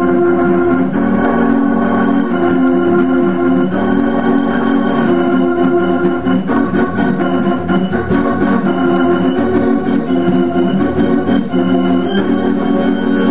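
Hammond organ played live in gospel style: full sustained chords on the manuals that change every second or so, over a moving bass line.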